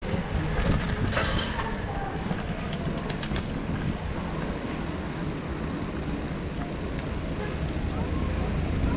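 Steady low rumble of riding a bicycle on paving, with wind on a GoPro's microphone, and a quick run of sharp clicks about three seconds in.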